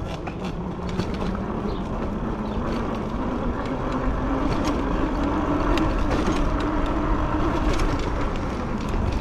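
Fat-tire e-bike riding along a street, heavy wind rumble on the microphone, with a hum that rises slowly in pitch as the bike picks up speed. Short clicks and rattles come through over ripples in the road surface.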